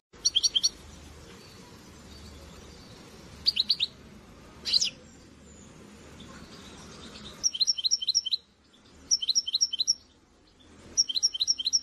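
A small songbird giving short bursts of rapid high chirps, four or five notes a burst, repeated five times with pauses between, and one single sweeping note in between.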